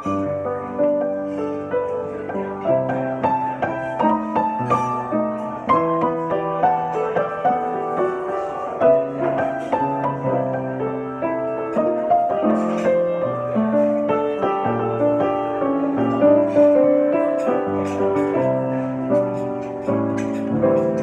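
Grand piano played solo with both hands: a continuous flow of melody and chord notes over sustained bass notes.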